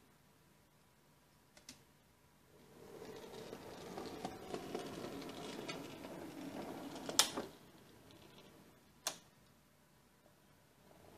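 Small H0e narrow-gauge model locomotive running along the track, a whirring of motor and wheels that sets in a couple of seconds in and dies away after about five seconds. Sharp clicks come about a second and a half in, around seven seconds in (the loudest) and near nine seconds.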